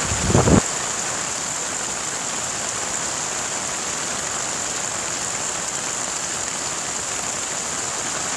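Heavy rain pouring down steadily, an even hiss on puddled ground and shelters. There is a short low rumble in the first half second.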